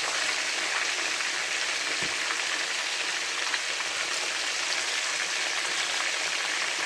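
Chicken pieces frying in hot oil: a steady sizzle with scattered small crackles as the golden-brown chicken crisps.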